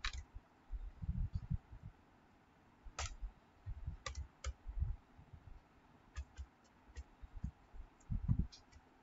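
Typing on a computer keyboard: irregular keystrokes, some single and some in quick little runs, each a sharp click with a dull thud under it.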